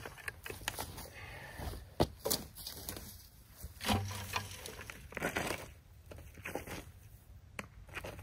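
Aged wood chip mulch being pushed and spread by hand, giving an irregular rustle and crackle of chips with a few sharper knocks.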